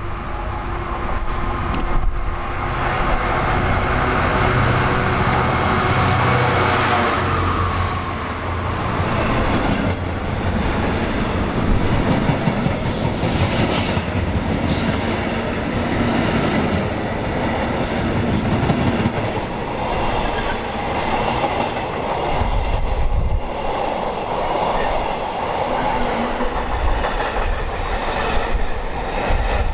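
A train passing at speed on the main line: a whine rising in pitch over the first several seconds as it approaches, then a sustained rush of wheel and rail noise as it goes by, with wind on the microphone.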